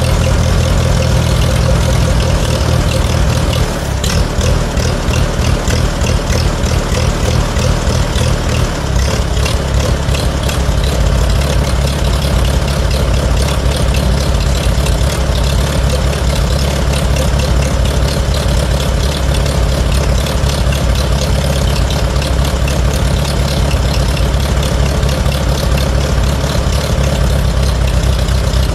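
Farmall A's four-cylinder gasoline engine running on its rebuilt Zenith carburetor, its speed shifting about 4 and 8 seconds in. It runs a little rich ("on the fat side") and not quite smooth, which the owner puts down to too little air.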